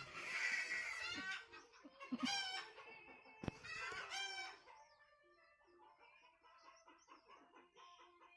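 Domestic chickens calling and clucking, with a rooster crowing at the start, loud calls in the first half and fainter clucking later. A single sharp knock comes about three and a half seconds in.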